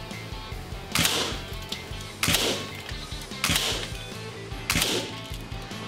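Four shots from a suppressed .177 SIG Sauer ASP20 gas-piston breakbarrel air rifle, each a sharp short report, about a second and a quarter apart, over background rock music.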